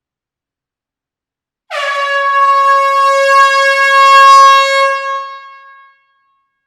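Air horn sounding one long blast at a steady pitch, starting sharply about a second and a half in and holding for about three seconds before fading out over about a second.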